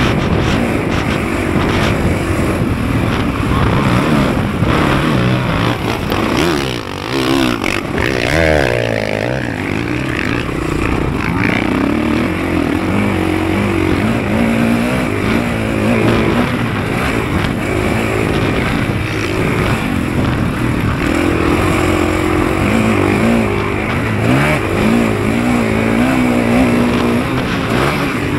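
Motocross dirt bike engine being ridden hard, its pitch rising and falling again and again as the throttle is opened and closed.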